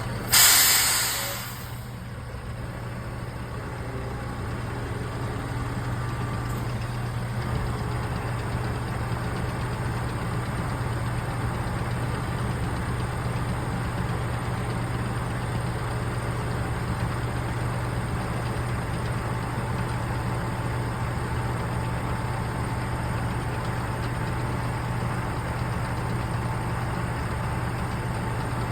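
Feed truck's diesel engine idling steadily after a short burst of air-brake hiss at the start.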